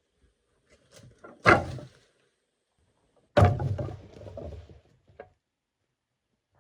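Two heavy knocks about two seconds apart, each trailing off briefly, then a lighter knock about a second after the second.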